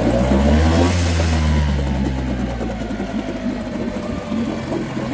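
Older Mariner 4 hp single-cylinder two-stroke outboard motor running in a test tank. It revs up in the first second, then drops back and settles to a steady lower speed.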